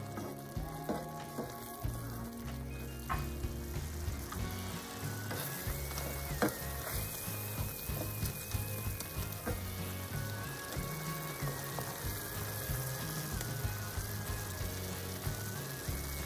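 Pumpkin leaves cooking in a creamy sauce, sizzling and bubbling in a skillet while a wooden spatula stirs them, with an occasional knock of the spatula against the pan. Soft background music plays underneath.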